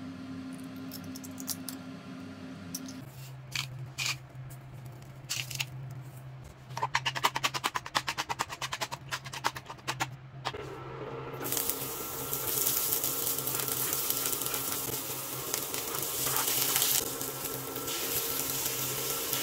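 A few scattered taps, then a fork beating egg in a plate with fast, even clicking for a few seconds. After it stops, oil sizzling steadily in a pan of chopped okra and onion, with beaten egg poured in near the end.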